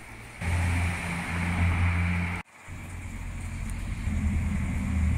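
A low, steady motor drone over a background hiss, which gets louder about half a second in and cuts out abruptly for a moment about two and a half seconds in before resuming.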